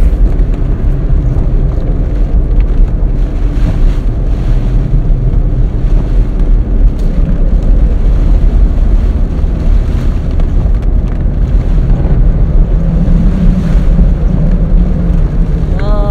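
Steady, loud low rumble inside a vehicle, with wind buffeting the microphone.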